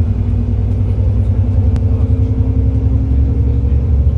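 Alexander Dennis Enviro 400 MMC double-decker bus under way, heard from inside the upper deck: a steady low engine and road rumble, with one sharp click about two seconds in.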